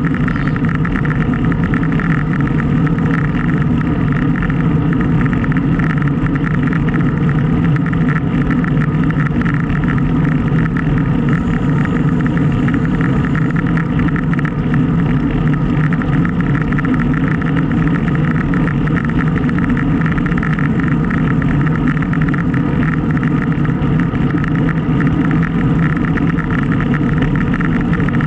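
Steady, loud wind noise rushing over an action camera's microphone while riding a bicycle into a head wind.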